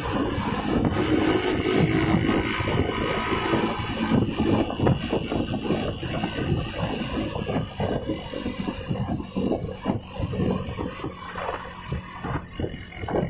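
Diesel bus engine running through a 'snoring' exhaust (knalpot ngorok), a rough, rapidly pulsing drone.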